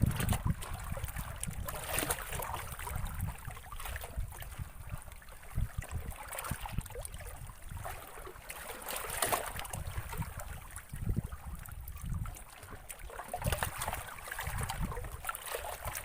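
Wind gusting on the microphone, with water lapping and splashing now and then.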